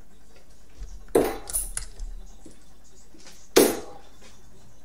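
Steel-tip darts being pulled from a bristle dartboard and clinking together in the hand: two sharp metallic clinks about two and a half seconds apart, with a few lighter clicks after the first.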